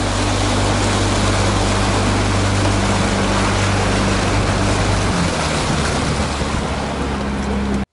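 Outboard motor on a Kazanka 5M aluminium motorboat running under way, with water rushing along the hull and wind. About five seconds in the engine note drops lower as the throttle is eased; the sound cuts off abruptly near the end.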